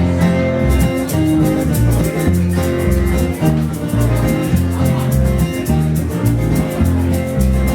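Live blues band playing the instrumental intro of an original song: electric guitar over a walking bass line, with a steady fast ticking on top. The band comes in abruptly at the start.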